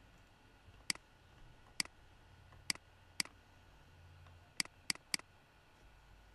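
Computer mouse button clicking seven times at uneven intervals, sharp separate clicks, three of them close together near the end.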